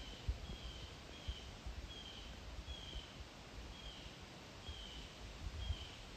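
A bird calling one short, high, slightly falling note over and over, about eight times, roughly one every three-quarters of a second. Soft low thumps and rustling sound underneath.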